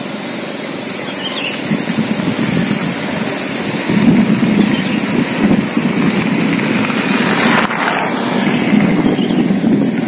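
Wind buffeting the microphone: a loud, gusting rumble that swells about four seconds in.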